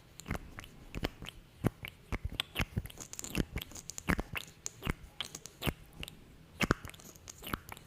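Close-miked sticky lip sounds: glossed lips parting and pressing together in irregular wet smacks and pops.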